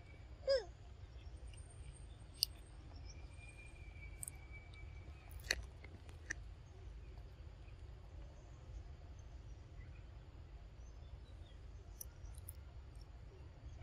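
Quiet forest background with a few sharp clicks, a short falling squeak call about half a second in and another at the very end, and a thin steady whistle for a couple of seconds in the middle.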